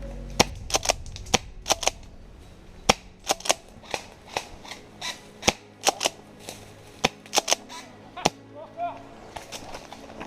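Airsoft guns firing in an exchange of shots: about two dozen sharp cracks at uneven spacing, some in quick doubles and triples.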